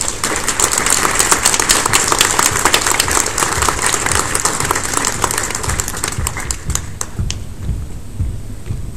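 Audience applauding, the clapping thinning out and dying away about seven seconds in.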